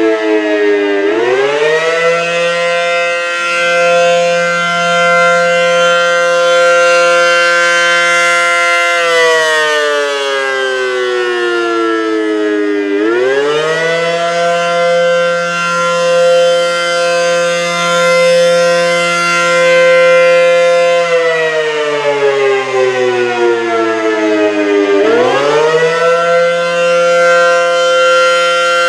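ACA Allertor 125 civil defense siren sounding its wailing attack signal. The pitch sweeps up quickly, holds high for about eight seconds, then slides down over about four seconds. It climbs again three times: about a second in, about 13 seconds in, and about 25 seconds in.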